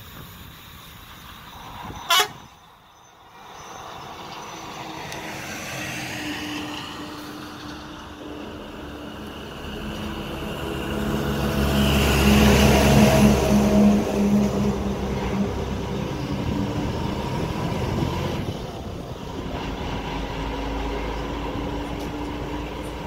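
Bus running at speed, heard from an open side window with air rushing past. A horn sounds loudest about halfway through as a held, steady blast, with fainter horn tones before and after it. There is one sharp click about two seconds in.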